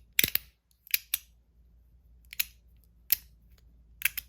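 Stainless steel Mott Rhythm fidget toy clicking as it is handled: about eight sharp, irregular metallic clicks, several in quick pairs, with a closely spaced pair near the end.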